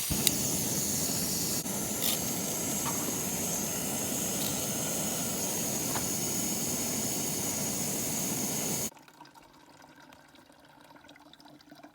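Steady rushing water, an even hiss that cuts off abruptly about nine seconds in.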